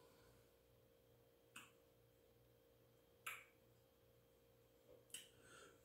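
Near silence with three faint short lip smacks, about a second and a half apart, from a person tasting a sip of beer.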